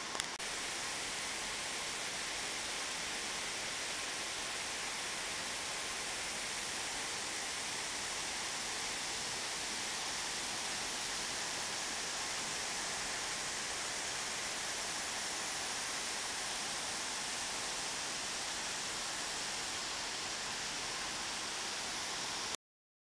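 The Tzaráracua, a waterfall about 40 m high on the Cupatitzio River, crashing into its plunge pool: a steady, dense rush of falling water. The sound cuts off suddenly near the end.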